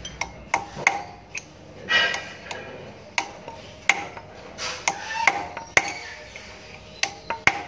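Hammer striking a metal punch held against the differential gear hub of a Nichiyu FBR18 reach truck. About a dozen sharp metallic strikes at irregular intervals, each with a short ring.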